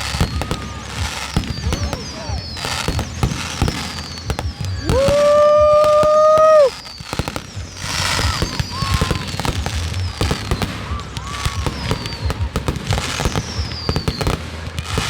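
Consumer fireworks going off in quick succession, a steady run of pops and crackling with short falling whistles. Near the middle a loud, steady whistling tone holds one pitch for about two seconds, then cuts off.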